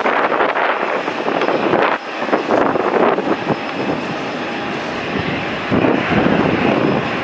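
Boeing 737 BBJ's twin jet engines on the takeoff roll: a loud, steady rushing roar that dips about two seconds in and swells again near six seconds.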